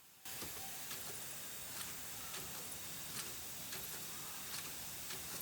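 Automatic spoke-nipple threading machine running on a bicycle wheel, giving regular sharp clicks about every two-thirds of a second over a steady factory hiss.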